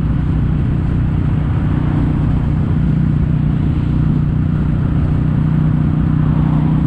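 Kawasaki W800 air-cooled parallel-twin running at a steady cruise through Yamato stainless-steel Caburton-style silencers in their standard form. The exhaust note holds one even pitch, with no revving up or down.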